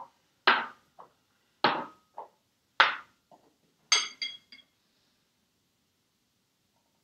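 Small glass jars knocked down one after another onto a wooden board, about one knock a second, then a short ringing clink of a spoon against glass about four seconds in.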